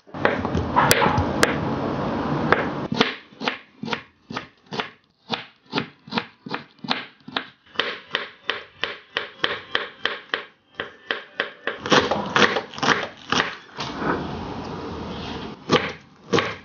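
Kitchen knife chopping vegetables on a bamboo cutting board in quick, even strokes, about four a second. There are stretches of denser scraping noise at the start and again past the middle.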